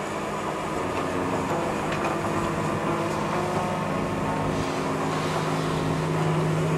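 Steady rush of wind and water past a large sailing yacht under way, with a low steady hum underneath that grows a little louder near the end.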